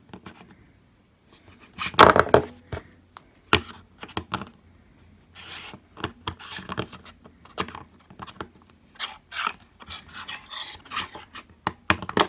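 Small plastic Q Posket figure being worked onto its ill-fitting base: scraping, rubbing and light knocks of plastic on plastic and on the tabletop, loudest about two seconds in.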